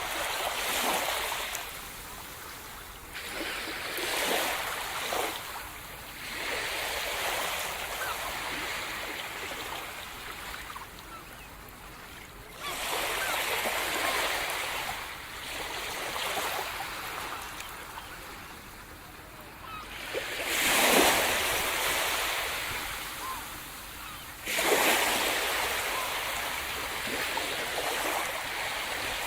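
Sea surf: waves breaking and washing up the shore, a rushing noise that swells and ebbs every few seconds, with the biggest breakers about two thirds of the way in and again near the end.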